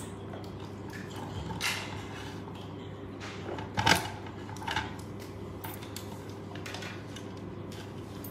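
Parts of a die-cast and plastic toy cannon being pulled apart and clicked together by hand: a few sharp clicks and clacks, the loudest about four seconds in, over a low steady hum.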